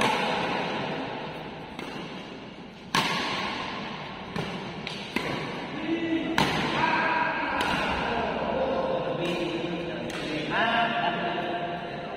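Badminton rackets striking a shuttlecock in a doubles rally: a string of sharp smacks about one to one and a half seconds apart, each echoing in a large hall.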